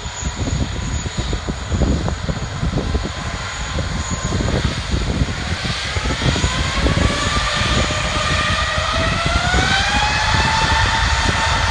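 Airbus A380's four Rolls-Royce Trent 900 turbofans spooling up for the takeoff roll. A low rumble carries a whine that starts rising about six seconds in as thrust is added and levels off near the end.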